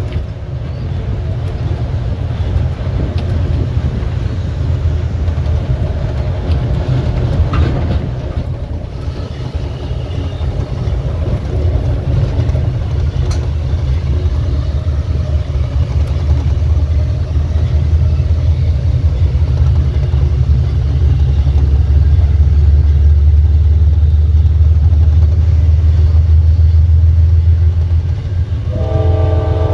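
Diesel engine of a GE Dash 8-32BWH passenger locomotive running under power, heard close behind the locomotive: a steady low drone that grows louder a bit past the middle. Near the end its K5LA five-chime air horn starts to sound.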